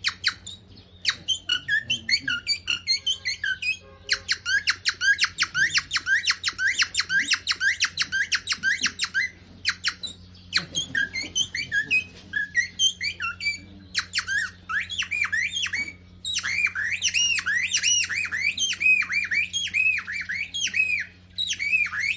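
A person imitating bird calls: long runs of fast, high, sharp chirps, several a second, in bursts broken by short pauses.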